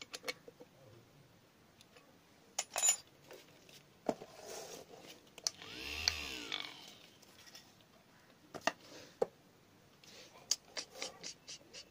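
Homemade drill's 775 DC motor run briefly, spinning up and winding down again over about two seconds in the middle. Sharp handling clicks and taps come before and after it, the loudest a cluster a little under three seconds in.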